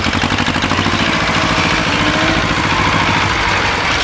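Small tractor engine running steadily with a rapid, even chug.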